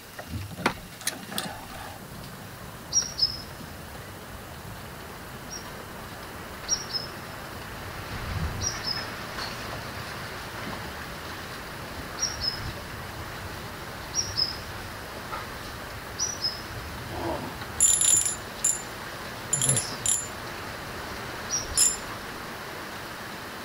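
A small bird's short, falling chirp repeated about every two seconds over a steady background hiss, with a few sharp clicks near the end.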